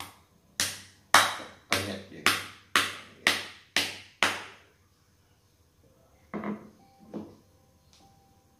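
Stone pestle pounding in a stone mortar: eight sharp strikes at about two a second, then two softer knocks near the end.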